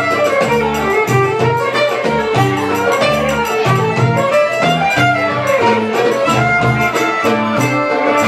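Live band playing belly-dance music: a violin carries a gliding melody over plucked strings, bass and a steady drum beat.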